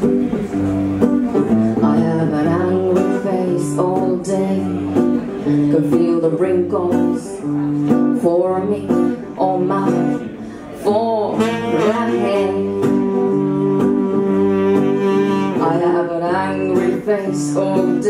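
Acoustic guitar picking a repeating low figure while a saxophone plays a melody over it, holding one long wavering note in the middle.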